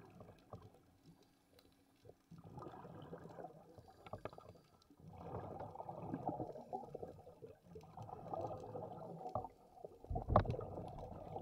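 Muffled water gurgling and sloshing in several bursts of one to three seconds each, heard through an underwater camera.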